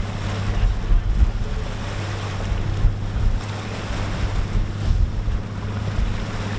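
Evinrude outboard motor running with a steady low hum as the boat pushes through rough water. Waves splash and churn in the wake, and wind buffets the microphone.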